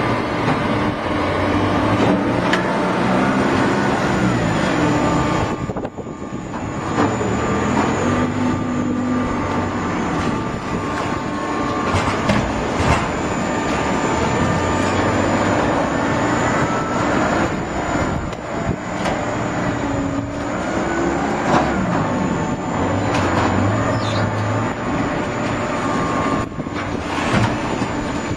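Hydraulic cardboard baler running: a steady mechanical drone whose pitch shifts up and down every second or two, with creaks and squeals over it and a brief drop in level about six seconds in.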